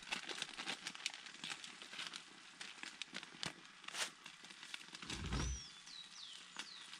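Faint crackling of food frying in a pan on a camp gas stove, with small clicks of handling. There is a low bump about five seconds in and a few short bird chirps near the end.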